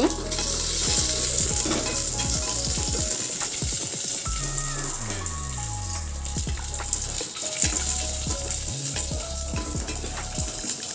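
Cashews, raisins and almonds sizzling as they fry in hot ghee in an aluminium pressure cooker, with a wooden spatula stirring them and clicking against the pot now and then.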